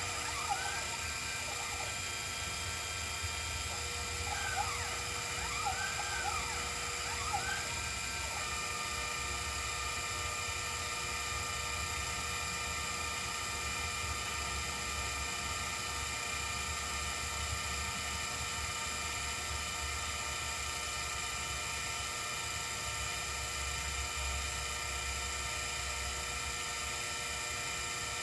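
Sherline 5000 CNC mill running with its spindle on, milling a printed circuit board. The stepper motors whine, and their pitch rises and falls in short arcs a few times in the first eight seconds, then holds steady.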